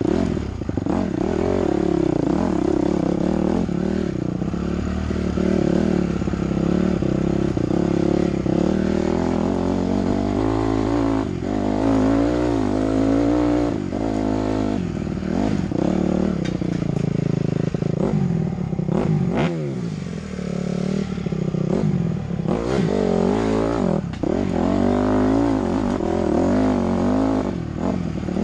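Dirt bike engine being ridden on single-track trail, its pitch rising and falling over and over as the throttle is rolled on and off.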